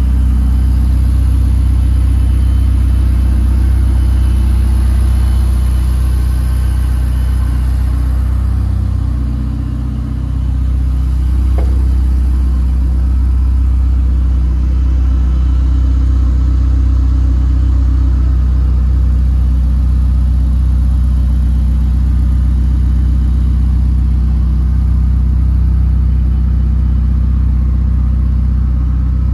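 Ferrari 488 Pista's twin-turbo V8 running at a steady cruise with road rumble, a constant low drone that eases off briefly about ten seconds in.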